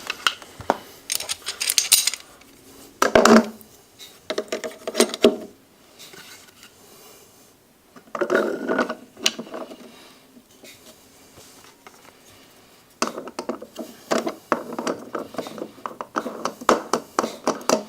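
Metal parts clinking and clattering in a kitchen sink as the disposal-mounting tool and sink flange are handled: several separate bursts of clinks, then a quicker run of small clicks near the end.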